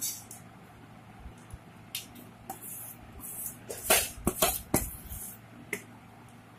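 Spoon knocking and clinking against a metal cooking pot while chicken pieces are spooned onto a layer of rice, with a quick cluster of sharp clinks about four to five seconds in.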